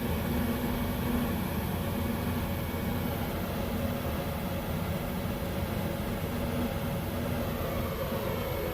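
Steady fan drone with a low electrical hum from a 1300-watt induction cooktop running off a 2000-watt power inverter under load.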